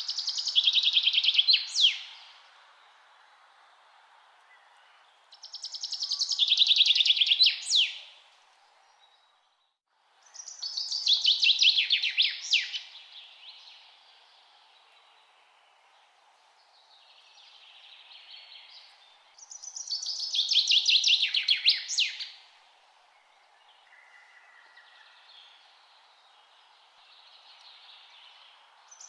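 A songbird singing the same song again and again: a fast run of notes falling in pitch, about two seconds long and ending in a sharp downward note, heard four times, with fainter calls between, over a steady background hiss.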